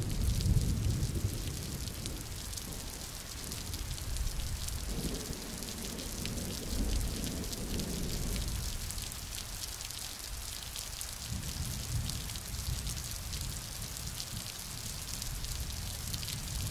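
Steady rain, a hiss flecked with the ticks of single drops, over low rumbles that come and go.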